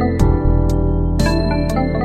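Background music: electric piano or keyboard chords over a steady bass, with a new chord struck about every half second.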